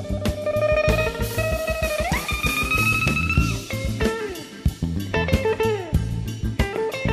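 Electric blues guitar solo over bass and drum kit. A held note is bent upward about two seconds in and sustained, then a few bends fall back down.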